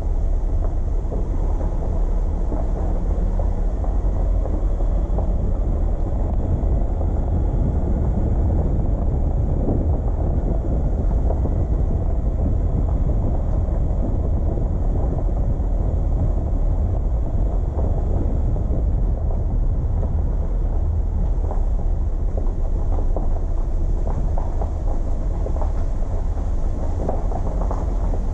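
Steady low rumble of a car driving along: engine and road noise with no breaks or distinct events.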